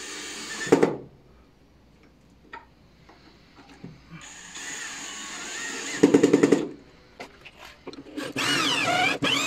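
DeWalt power drill driving screws into wood, two short runs, the second ending in a burst of rapid loud clicks as the screw seats. Near the end a drill runs with a whine that wavers in pitch, boring a pocket hole through a wooden jig into the tabletop.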